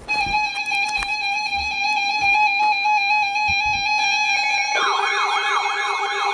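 Steady electronic alert tone with a few low thumps under it; about five seconds in, a fast warbling siren wail joins it, sweeping up and down several times a second.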